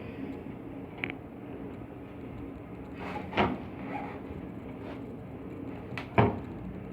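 Steady machine hum from air handling unit plant, with three sharp knocks about one, three and a half, and six seconds in, the last two the loudest, from hand work on the unit during a V-belt change.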